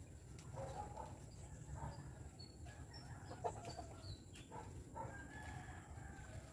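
Faint chickens in the background: hens clucking and a rooster crowing, with a few short high bird chirps.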